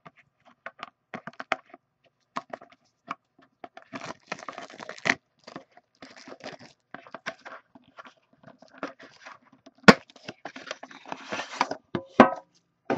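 Shrink-wrap cellophane being torn and peeled off a trading-card box: irregular crinkling and crackling with scattered clicks, and one sharp snap, the loudest sound, about ten seconds in.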